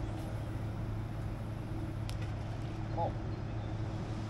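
Steady low electrical hum with hiss on the audio track, with one faint click about two seconds in. The uploader puts it down to the camera not yet having recognised its microphone.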